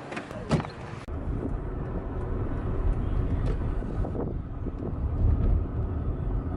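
Steady low rumble of a car on the road, heard from inside the cabin, starting abruptly about a second in. Before it, outdoor ambience with one sharp sound.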